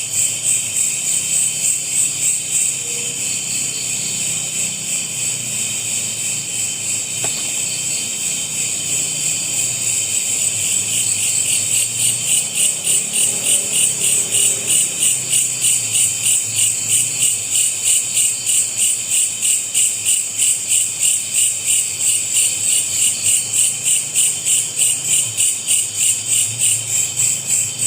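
Chorus of night insects, crickets or similar, trilling in high-pitched pulses about twice a second, growing louder about ten seconds in.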